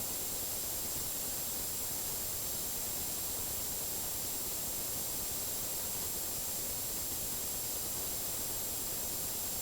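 Steady hiss like line noise or static, with a faint high-pitched tone held through it.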